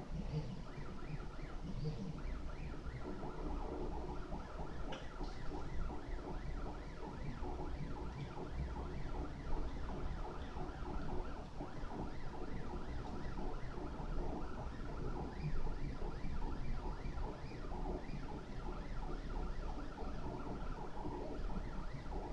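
Prusa i3 RepRap 3D printer's stepper motors whining in short, quickly changing pitches as the print head and bed move through a print, over a steady low hum.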